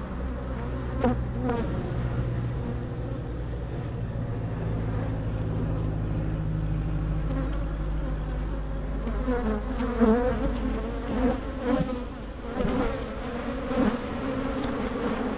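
Agitated honey bees buzzing in a steady swarm hum, with single bees swooping close past the microphone in louder, wavering buzzes from about nine seconds in. The colony is upset and flying at the camera during a hive inspection.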